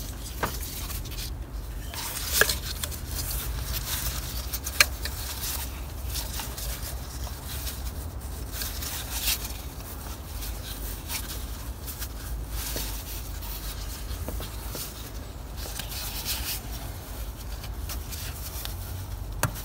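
Gloved hands rubbing and fumbling as an ignition coil pack is worked into place on the engine, with a few short sharp clicks and knocks scattered through, over a steady low hum.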